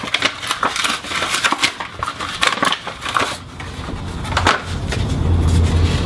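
Paper crinkling and rustling as a folded paper packet is opened out by hand, in irregular crackles through the first few seconds. A low steady hum comes in about four and a half seconds in.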